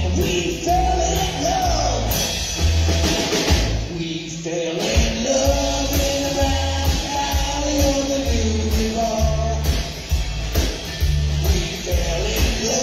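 Rock-and-roll band playing live: upright bass, drum kit and electric guitar keeping a steady beat.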